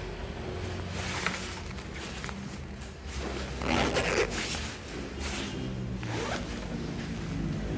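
Zipper on a softshell jacket being pulled in several short rasping runs, the longest and loudest about halfway through.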